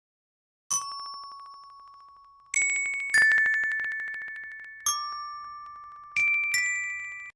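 Jingle sound effect of bell-like chime tones: six struck notes at different pitches, each ringing on and overlapping the next, all cut off abruptly at the end.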